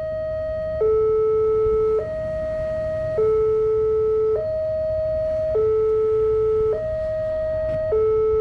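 Railway level-crossing warning alarm sounding a two-tone electronic hi-lo signal, switching between a higher and a louder lower tone about every 1.2 seconds, the warning that the barrier is closed and a train is approaching.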